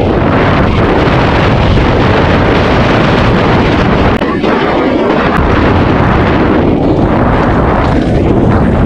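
Loud wind rush on a helmet-mounted camera microphone as a mountain bike speeds down a dirt trail, with scattered knocks and rattles from the bike over the rough ground.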